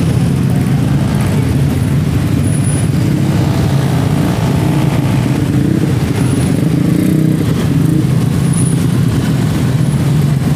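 Steady engine noise of cars and motorcycles crawling and idling in a traffic jam.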